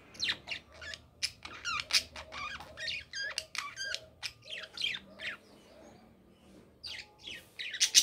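Budgerigar warbling: a quick chatter of short, varied chirps, squeaks and clicks, with a brief lull a little after the middle.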